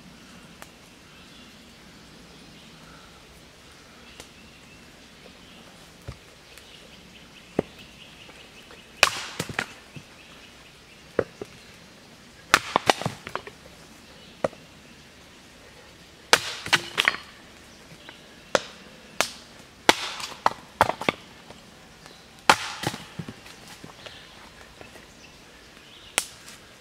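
Cedar being split for kindling on a chopping stump: sharp wooden knocks of a baton striking, in groups of two to four blows, starting about a third of the way in after a quiet start.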